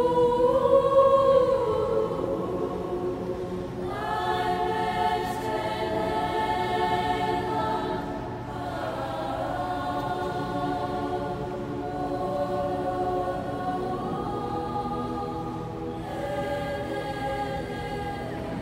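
Men's choir singing sustained chords in a large stone church, the voices ringing on in the hall. The chord moves early on and again about four seconds in, and a fresh chord enters near the end.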